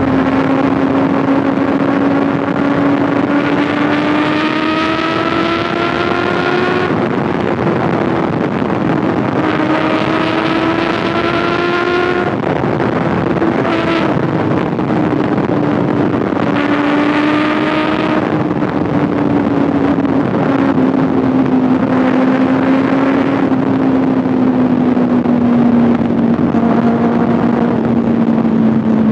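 Kawasaki ZX6R 636cc inline-four engine running at speed, its steady drone mixed with heavy wind rush on the mic; three times its note climbs in pitch and cuts off sharply.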